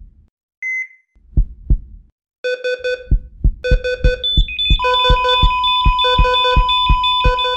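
Heart-monitor sound effect: a short beep and a low double heartbeat thump, twice, then the heartbeat speeds up to about three beats a second under fast repeating monitor alarm beeps. About five seconds in a steady high alarm tone joins in.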